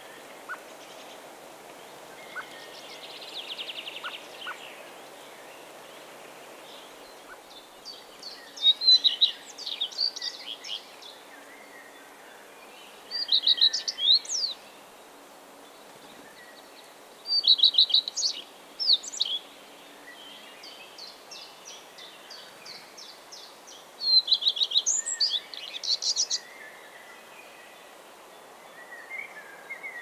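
A songbird singing: four loud phrases of quick, high-pitched repeated notes, each a second or two long and several seconds apart, with fainter bird chirps in the background.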